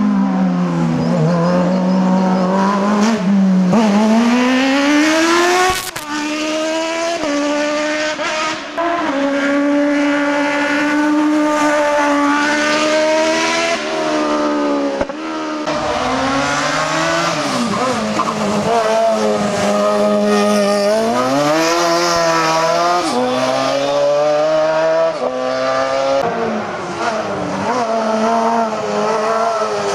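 Racing car's engine revving hard on an uphill slalom course. The pitch climbs and drops back over and over, with sudden drops at gear changes as the car accelerates and slows through the chicanes.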